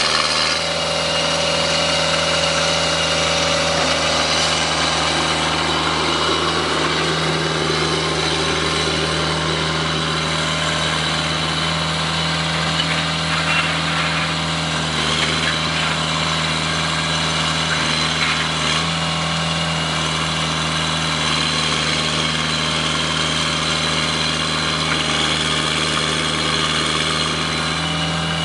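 Horizontal directional drilling rig's engine running at a steady, unchanging pitch while it drives the drill for a geothermal ground loop.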